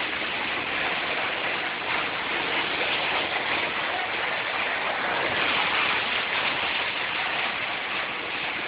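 Hail falling steadily, an even, dense hiss of hailstones striking outside.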